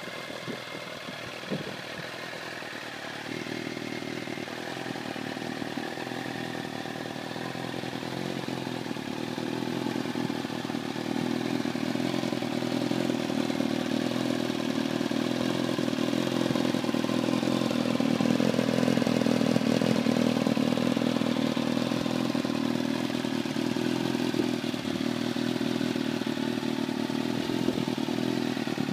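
Kawasaki ZX-6R inline-four motorcycle engine running in a go-kart, growing louder over the first dozen seconds and then holding steady.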